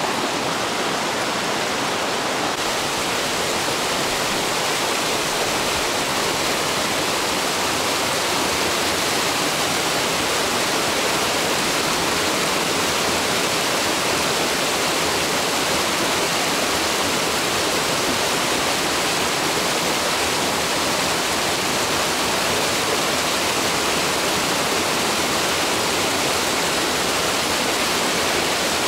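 Mountain river rushing, a steady, even roar of fast-flowing water.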